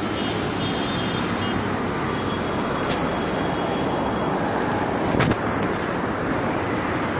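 Steady road traffic noise from cars running along a city road, with one short knock about five seconds in.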